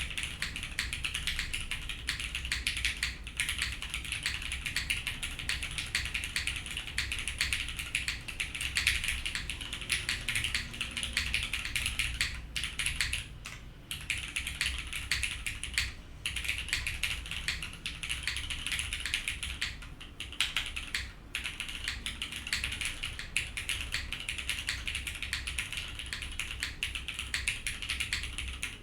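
Steady, fast typing on a tenkeyless custom mechanical keyboard with Cherry MX Black linear switches on a PEI plate and GMK ABS keycaps, key strokes clacking densely, with a few brief breaks in the typing partway through.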